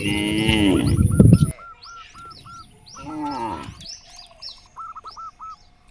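Birds chirping and twittering in quick repeated calls, with two loud, low calls of cattle lowing: a longer one at the start and a shorter one about three seconds in.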